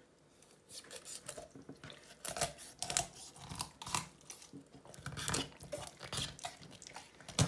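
Chef's knife cutting through a raw whole chicken along its back on a plastic cutting board: a run of irregular short crunches and snips as the blade works through skin and bone, with one sharper click near the end.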